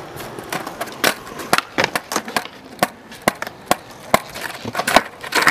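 Freestyle skateboarding on flat concrete. The wooden deck, tail and wheels knock against the ground in an irregular series of sharp clacks as the board is flipped and stood on end.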